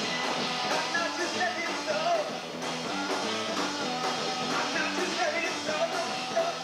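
Rock band playing live: drum kit keeping a steady beat under electric guitar and bass, with a wavering lead line above.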